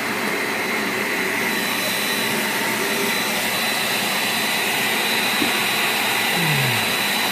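Hair dryer running steadily as the air supply of a homemade forced-air forge burner: a constant rush of air with a thin, steady high whine over it.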